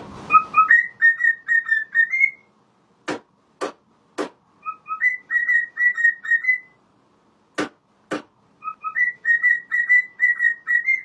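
Runs of short, high, whistling squeaks, each run a quick string of notes that steps up in pitch near its end, repeated several times. A few sharp clicks fall in the gaps between runs.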